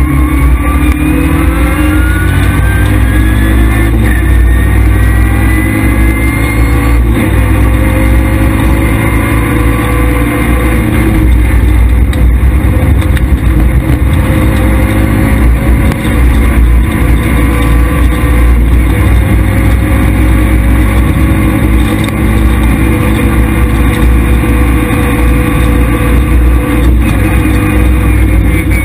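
Škoda Felicia rally car's engine under hard acceleration, heard from inside the cabin. Its pitch rises over the first few seconds as it revs up, then stays high and fairly steady, with a few brief knocks.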